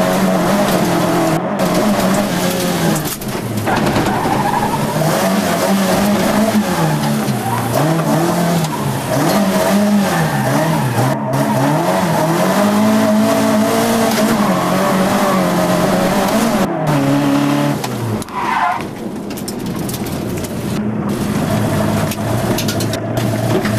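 Mk1 Ford Escort rally car's engine heard from inside the cabin, revving hard and falling back again and again as the driver works through the gears, with a brief drop in revs about 18 seconds in.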